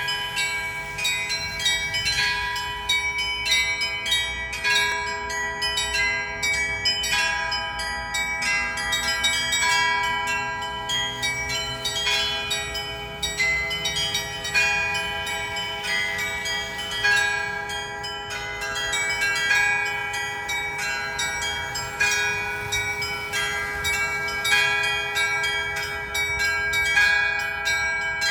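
Church bells ringing: many bells struck in quick succession, several strikes a second, their tones ringing on and overlapping without a break.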